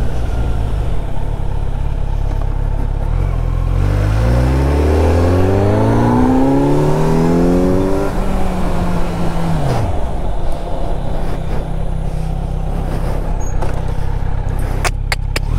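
Kawasaki Z900's inline-four engine revving up, its pitch climbing for about four seconds and then dropping away, over a steady low drone. A few sharp clicks near the end.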